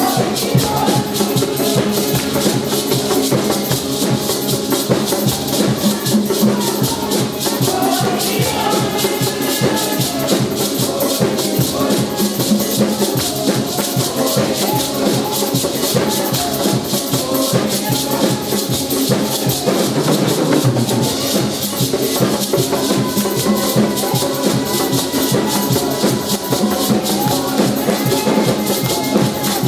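Praise-and-worship song sung live by several voices into microphones, over a steady, fast shaker rhythm.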